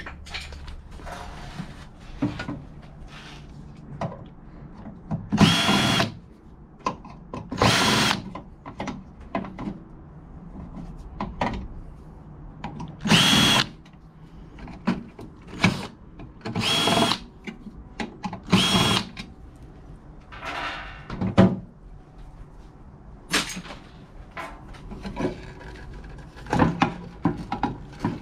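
Power drill running in short bursts of about half a second, about half a dozen times, each with a steady high whine. Clicks and knocks from parts being handled come between the bursts.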